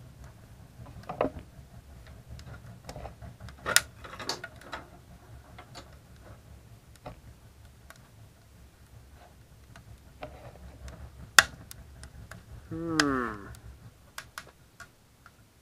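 Wood fire crackling inside a homemade propane-tank wood stove: irregular sharp snaps and ticks, a few louder pops, over a low steady rumble. The fire is drawing hard.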